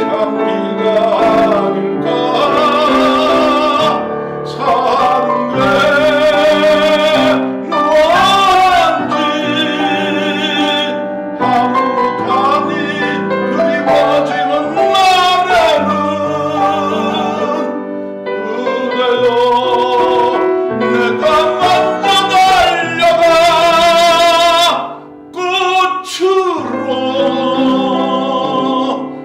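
A male classical voice singing a Korean art song with wide vibrato, accompanied by a Yamaha grand piano. The voice breaks off briefly near the end while the piano carries on.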